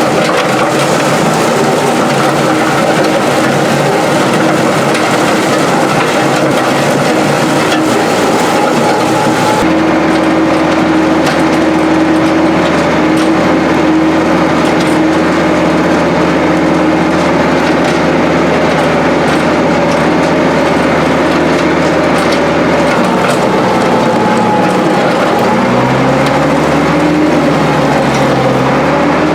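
International 1066 tractor's diesel engine running steadily while pulling a box scraper, with gravel and rock crunching beneath. The engine note shifts suddenly about ten seconds in, and near the end its pitch rises and falls again.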